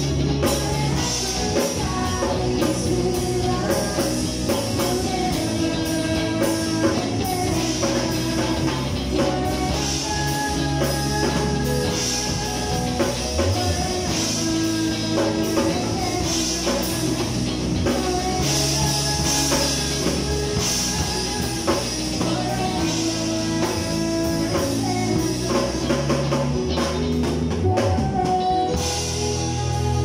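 A live band playing a song together: a drum kit with cymbals and electric guitars through amplifiers, playing steadily with no break.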